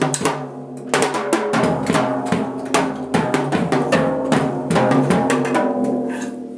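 Music: a drum kit playing a busy beat of snare and bass-drum hits over sustained pitched notes, fading toward the end.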